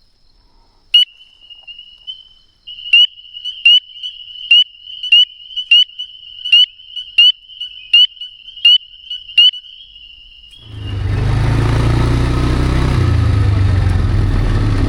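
A tiny frog calling close by, with a dozen loud, sharp, high calls about every two-thirds of a second over a steady high trill, loud enough to almost hurt the ears. Near the end a loud steady low rumble takes over.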